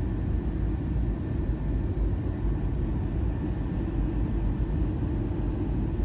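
Steady low rumble of airliner cabin noise in flight, even and unchanging.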